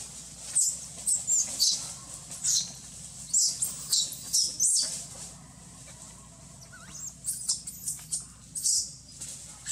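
Baby long-tailed macaque giving repeated short, very high-pitched squeals, in two clusters over the first five seconds and again about seven to nine seconds in.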